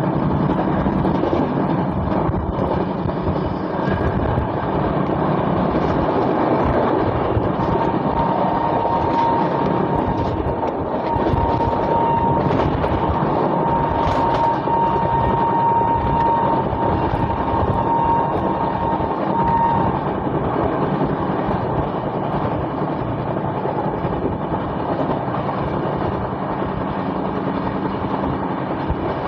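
Passenger train running at speed, heard from an open coach door: a steady rumble of wheels on rail mixed with rushing air. For about twelve seconds in the middle, a thin, steady high tone sounds over it and breaks off now and then.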